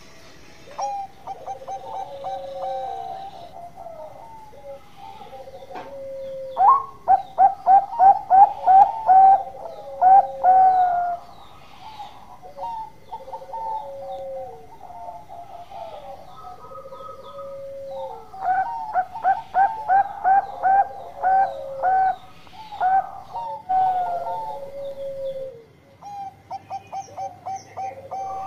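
Bangkok-type zebra dove (perkutut) cooing. Two loud runs of rapid staccato coos, about two to three notes a second, come about 7 seconds in and again near 18 seconds, with softer falling coos repeating every few seconds between them.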